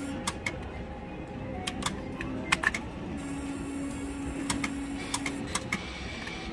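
Three-reel Double Diamond Strike slot machine spinning its reels, with a steady electronic tone while they turn from about three seconds in. Sharp mechanical clicks come throughout, and a cluster about five seconds in marks the reels stopping. Casino background music plays under it.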